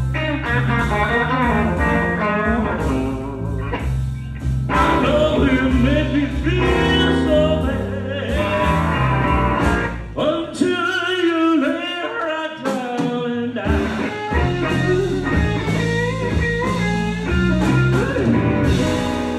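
Live blues band playing an instrumental passage: an electric guitar leads with bent notes over bass, drums and keyboard. A little past the middle the bass and drums drop out for about three seconds, leaving the guitar nearly alone, then the band comes back in.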